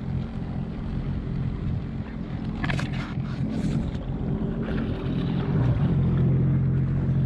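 Jet ski engine running at low speed, a steady low hum with water sloshing against the hull, growing a little louder after about six seconds. A couple of short hissing splashes about three seconds in.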